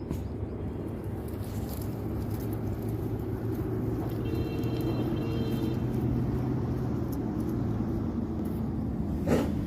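Steady low motor rumble, with a short high-pitched tone about four seconds in and a sharp click near the end.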